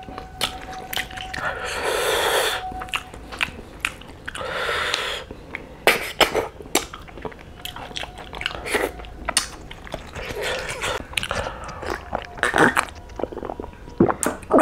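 Close-miked eating of snails in curry: chewing and sucking the snails, with many small clicks of the shells being picked up and handled. There are a few longer sucking sounds, about two seconds in, near five seconds and around ten seconds.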